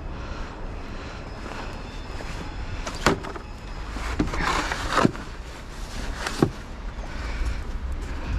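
Four sharp knocks over a steady low rumble, with a scraping rush between the second and third knocks.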